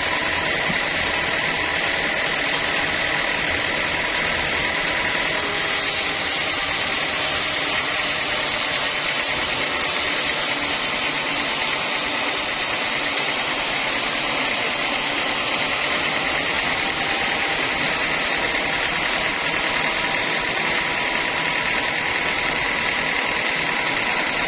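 Sawmill saw running steadily through teak, a constant machine noise with a high steady whine; a sharper hiss joins in from about five seconds in to about fifteen seconds in.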